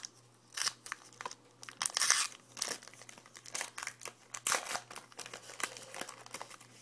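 A wrapper crinkling and tearing in uneven bursts as a pack of trading cards is torn open by hand, loudest about two seconds in.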